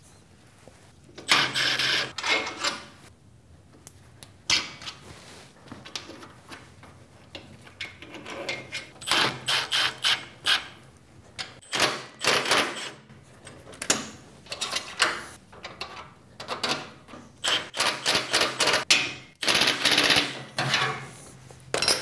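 Metal hand tools and bolts clinking and knocking while bolts are worked through a steel post and table leg, in irregular bursts that include runs of rapid clicking.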